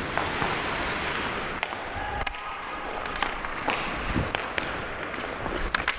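Ice hockey practice on the rink: skate blades scraping and gliding on the ice as a steady hiss, with scattered sharp clicks and knocks of sticks and pucks.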